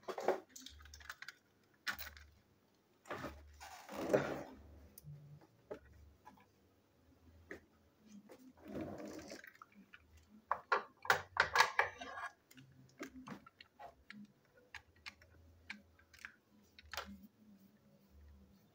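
Plastic toy train engines and tenders being handled and set down on a table: scattered clicks, light knocks and rustles of plastic parts, with a run of quick clicks about eleven seconds in.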